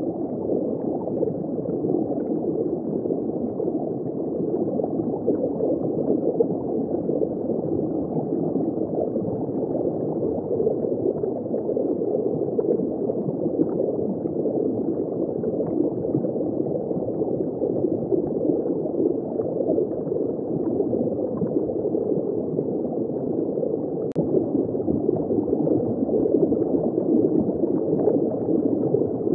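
Steady, muffled gurgling of circulating water in a saltwater reef aquarium, even throughout with no high hiss.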